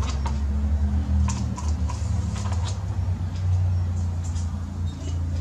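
Steady low mechanical hum in the background, with scattered light clicks and taps from paint containers and tools being handled over the canvas.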